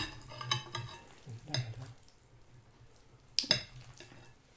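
Crunchy snack food crackling close to the microphone, with a sharp click at the start and another about three and a half seconds in.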